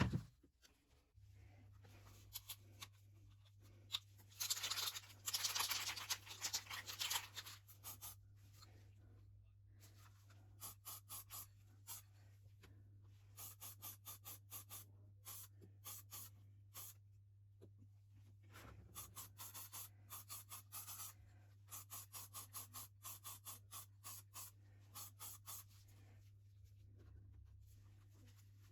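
Rhythmic hand scraping or rubbing strokes during cleaning of an old Sievert blowtorch, a rougher, louder stretch about five seconds in, then settling into a steady pace of about four strokes a second. A steady low hum runs underneath.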